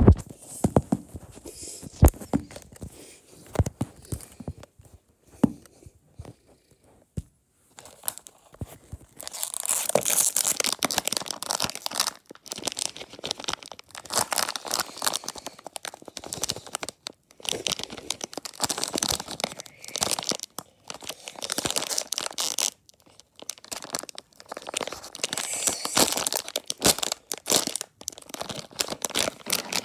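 Foil blind-bag packet crinkling and being torn open by hand, in irregular bursts of crackle with a short lull about six seconds in.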